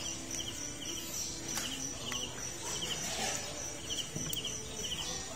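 Night insects: a cricket chirping in short trilled bursts about twice a second over a steady high-pitched insect drone, with a few faint knocks.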